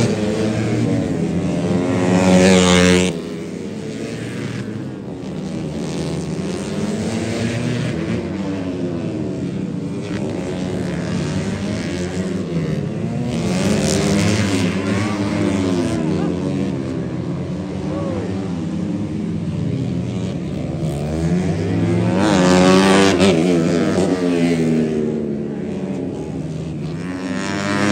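Small racing motorcycles' engines revving up and falling back over and over as they brake and accelerate around tight corners. Bikes pass close and loudly about two seconds in, around the middle, a few seconds before the end, and again at the very end.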